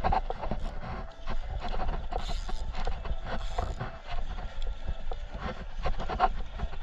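Spinning fishing reel being cranked and handled, giving irregular clicks and knocks over a steady low rumble.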